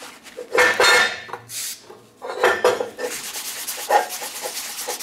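Cast aluminum part knocking and scraping against a metal work table as it is handled and repositioned, in several irregular bursts of clanks and rubbing.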